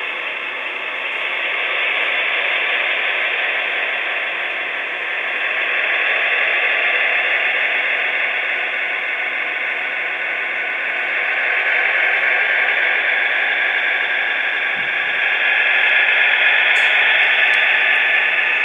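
HO scale model train running slowly in reverse on the layout: a steady, noisy running sound that swells and fades gently.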